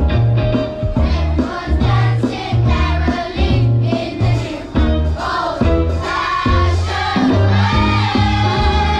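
A choir singing a song with instrumental accompaniment and a strong bass line.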